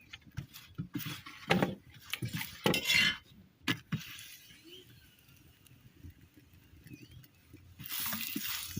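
Metal cooking utensils clinking and knocking against a pan, several sharp strikes in the first half, then a longer scraping noise near the end.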